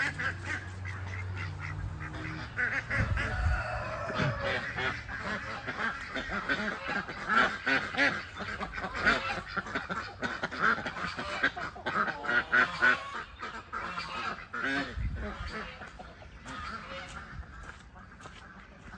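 A flock of ducks quacking, many short calls in quick succession that thin out and fade over the last few seconds.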